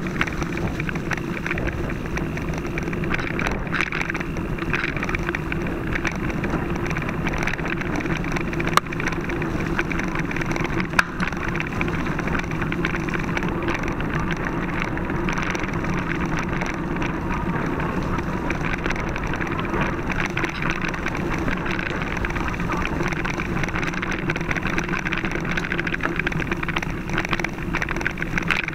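Mountain bike riding down a dirt woodland singletrack, heard from a camera mounted on the bike or rider: a steady rumble and rattle of tyres and frame over the trail, with a couple of sharp knocks from bumps about nine and eleven seconds in.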